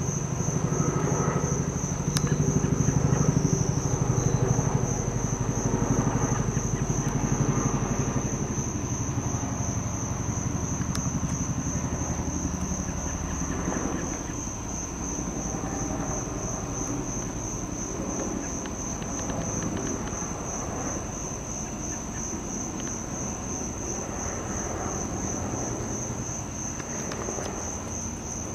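CH-47 Chinook tandem-rotor helicopter passing, its low rotor beat loudest in the first several seconds and fading away by about halfway through. A steady, high-pitched pulsing insect chorus runs underneath.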